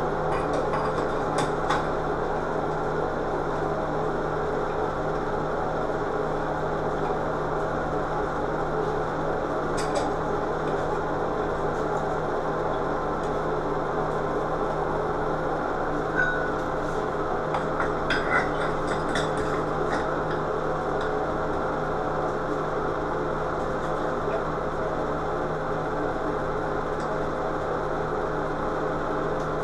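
A steady mechanical hum runs throughout, with a few light clinks and taps about ten seconds in and again around the middle as glass light shades and bulbs are handled and fitted onto a vanity light fixture.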